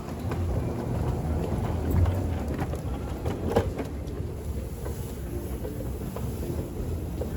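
Steady low rumble of a moving vehicle, with scattered clicks and one sharper knock about halfway through.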